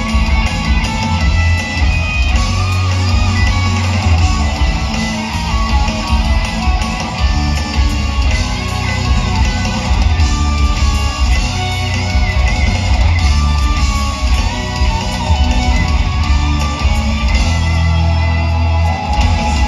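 Live heavy metal band playing loud, guitars to the fore over a heavy bass and drum low end, heard from within the crowd.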